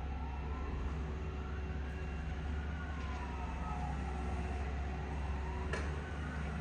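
A heavy machine's engine running with a steady low rumble, over which a whine slowly rises and falls in pitch; a single sharp click sounds near the end.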